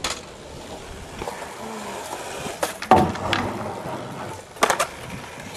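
Skateboard wheels rolling on smooth concrete, broken by several sharp clacks of the board striking the ledge and ground, the loudest about three seconds in.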